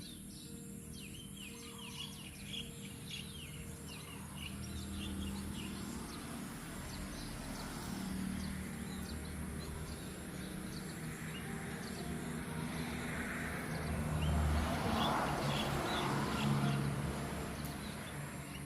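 Small birds chirping over and over, over a steady low hum. A louder rushing, scraping noise swells up about two-thirds of the way in and fades again.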